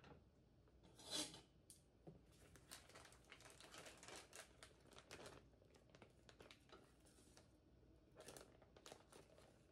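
Faint crinkling and rustling of a plastic food bag being handled and opened, in irregular bursts, loudest about a second in.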